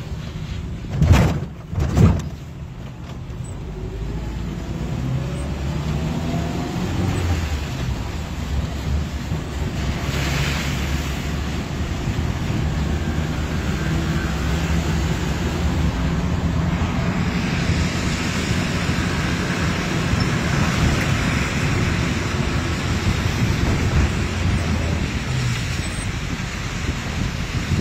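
Road, wind and engine noise from a moving car driving along a highway, heard from inside at an open window. Two loud thumps come about one and two seconds in. From about midway a stronger hiss builds as the tyres run on wet road.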